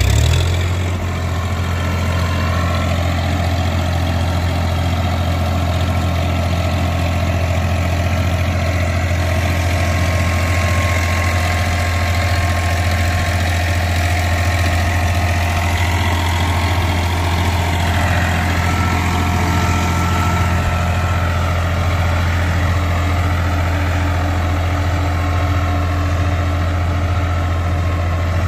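Farmtrac XP41 tractor's three-cylinder diesel engine running steadily under heavy load, dragging a rear implement through loose sandy soil while its rear wheels slip and dig in.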